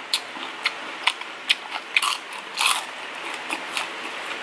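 Close-up crunching bites and chewing of deep-fried street food. Sharp crisp crunches come about every half second, with a longer crackly crunch a little past the middle.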